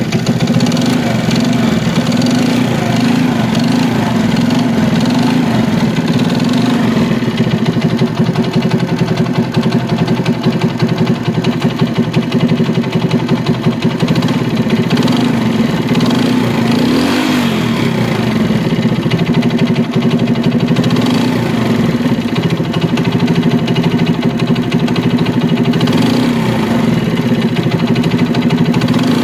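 A 70 cc four-stroke single-cylinder CD70-type motorcycle engine running with a loud, noisy mechanical clatter, its pitch dipping briefly and coming back up about two-thirds of the way through. The mechanic puts the noise down to a worn big-end bearing on the connecting rod, not the magneto or the clutch, even after the timing chain and cam were replaced.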